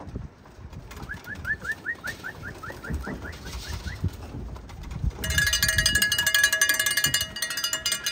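Pigeons at the loft, with a small bird chirping a quick run of rising notes. About five seconds in, a loud metallic rattle with ringing tones starts, like a feed can being shaken to call the pigeons in.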